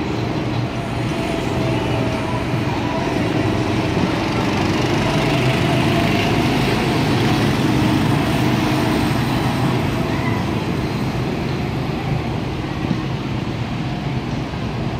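Go-kart engines running as karts circle the track: a steady drone that grows a little louder toward the middle, then eases.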